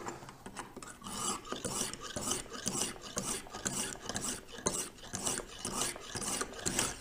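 Lansky 280-grit medium honing stone being stroked back and forth along a clamped knife edge, a rhythmic rasping of about three strokes a second that firms up about a second in.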